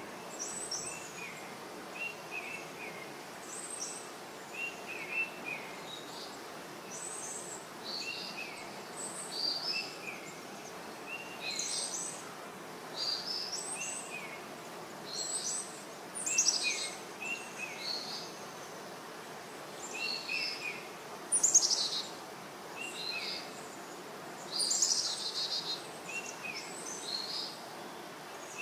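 Wild birds singing: short chirping phrases, some low and some high and sharp, repeating every second or two over a faint steady background hiss.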